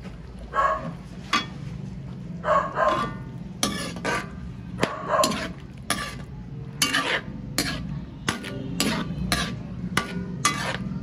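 A dog barking several times in short calls, begging for the food, while a spatula scrapes and clicks against a wok as chicken in sauce is stirred.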